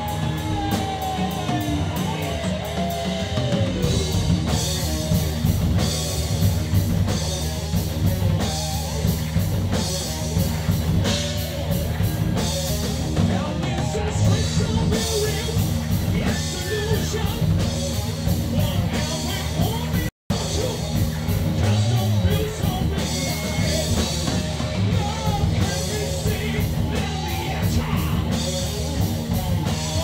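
Rock band playing live in a small rehearsal room: drum kit, electric guitar and bass guitar under a singing vocalist. A high note slides downward over the first few seconds. The sound cuts out completely for a split second about twenty seconds in.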